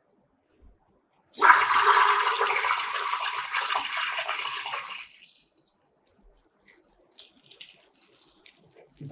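Liquefied petroleum gas hissing out of an upside-down refill canister pressed into a bowl of soapy water, bubbling and frothing the water up into foam. The hiss starts about a second in, loudest at first, and dies away after about four seconds, leaving only faint small sounds.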